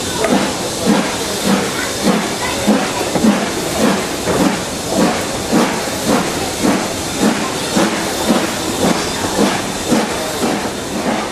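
Steam locomotive working steadily, its exhaust beats coming evenly about twice a second over a constant hiss. Heard from inside a carriage of the train it is hauling.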